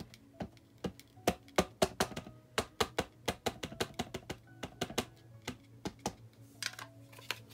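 Distress ink pad dabbed again and again onto a clear acrylic stamp in a stamping platform's lid: a quick, uneven run of sharp plastic taps, about four a second.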